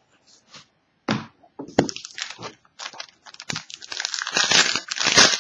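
Foil trading-card pack wrapper crinkling and crackling as it is handled and opened by hand, after a couple of sharp clicks about a second in; the crinkling grows louder toward the end.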